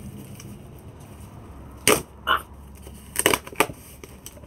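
Cardboard shipping box being forced and torn open by hand: a sharp crack about two seconds in, a short rip, then a quick cluster of cracks and tears about a second later.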